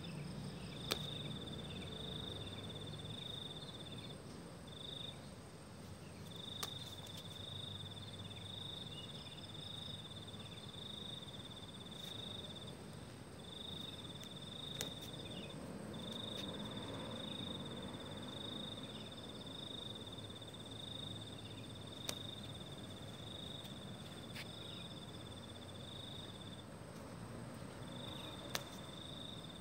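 An insect trilling steadily at a high pitch, breaking off briefly a few times, over a low background hum. A handful of sharp clicks stand out, spaced several seconds apart.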